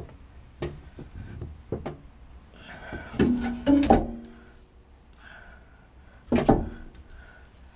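Irregular knocks and clunks of a hand working inside a narrowboat's weed hatch, with a brief cluster of ringing pitched notes about three seconds in and a loud knock near six and a half seconds.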